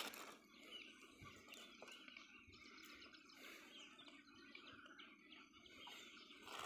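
Faint birds chirping now and then over quiet outdoor background.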